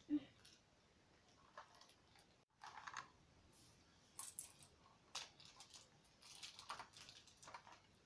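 Faint, scattered clicks and rustles of a small metal kitten pendant and its chain being handled and turned over in the fingers, with one short, louder blip at the very start.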